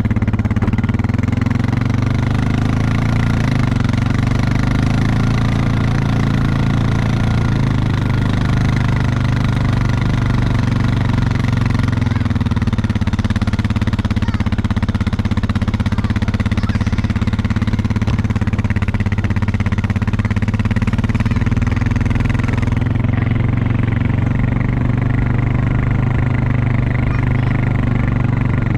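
Four-wheeler (ATV) engine running steadily at a constant speed, close by.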